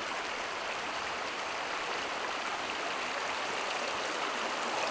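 Creek water running steadily over rocks, an even rushing sound.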